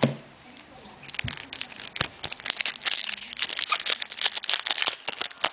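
Wrapper of a Sweet Shot basketball card pack crinkling and crackling as it is torn open by hand, a dense run of small crackles starting about a second in.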